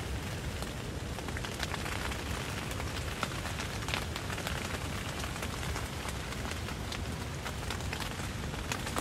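Rain pattering steadily on the fabric of a pop-up hunting ground blind, a dense run of fine drop ticks over a low wind rumble.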